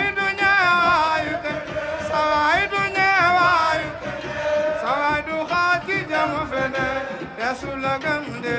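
A man singing a Wolof religious praise chant solo into a microphone: long, ornamented held notes that slide up and waver before settling.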